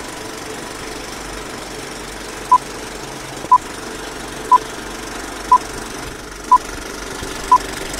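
Vintage film-leader countdown sound effect: a steady film-projector clatter and hiss, with a short beep once a second, six in all, starting about two and a half seconds in.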